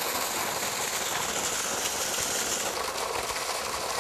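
Muddy water gushing steadily out of the flush pipe of a sand filter for drip irrigation, a continuous rush of splashing water: the filter is being backwashed to flush out the dirt caught in its sand.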